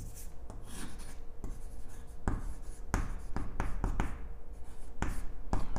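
Chalk writing on a chalkboard: a run of short scratches and sharp taps as the chalk strokes out letters.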